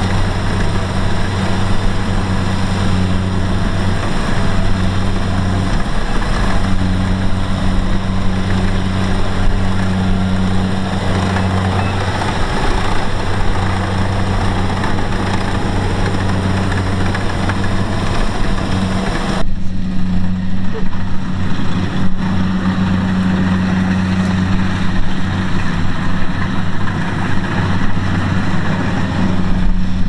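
Kubota DC-70 Plus combine harvester running steadily while cutting and threshing rice: a low, even diesel engine hum under a dense mechanical clatter. About two-thirds of the way in the higher clatter drops away abruptly and the engine hum carries on.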